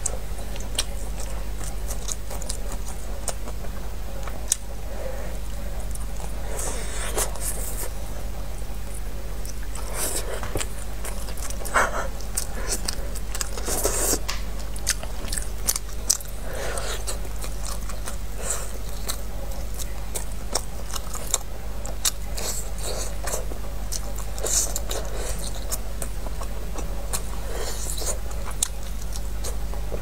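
Close-up eating of glazed pork ribs: biting and chewing the meat off the bone, with many short wet clicks throughout, over a steady low hum.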